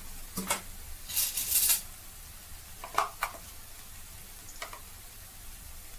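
Sliced onions frying in oil in an aluminium kadai, with a steady faint sizzle. About a second in comes a short, louder burst of sizzling and scraping as the spatula stirs, then a few sharp clicks of the spatula against the pan around three seconds in.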